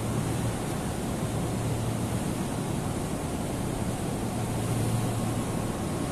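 Steady rushing noise with a low hum beneath it, unchanging throughout.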